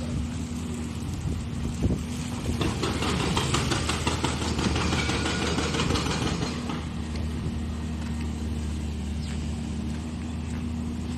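Diesel engine of a Volvo crawler excavator idling steadily close by, with a motorcycle riding past through the wet street from about two to six seconds in.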